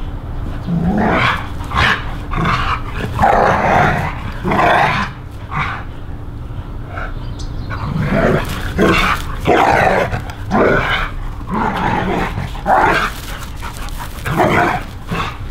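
Two dogs growling and barking in rough play, a quick irregular run of short outbursts.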